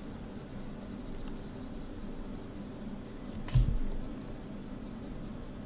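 Stylus scratching back and forth on a tablet screen while shading in an area, over a steady low hum. A single dull thump about three and a half seconds in.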